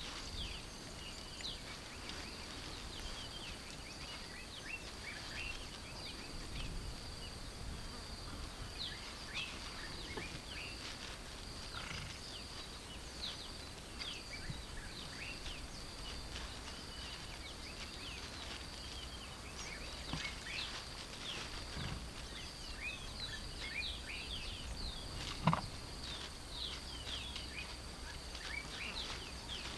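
Outdoor bush ambience: many short bird chirps over a steady high-pitched drone, with a low rumble underneath. One sharp knock comes near the end.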